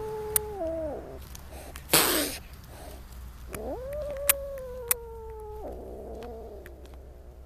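A kitten yowls in a long drawn-out call that drops in pitch and breaks off about a second in, spits a short loud hiss about two seconds in, then gives a second long yowl that rises, sags slowly and cuts off sharply near the end.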